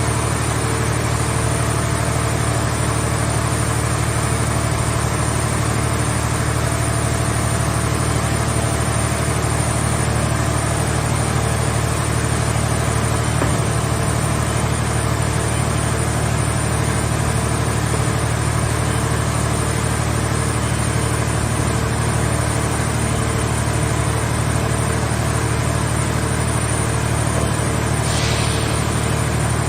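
Car shell baler's power unit running steadily with an even, low engine-like hum and no change in speed or load.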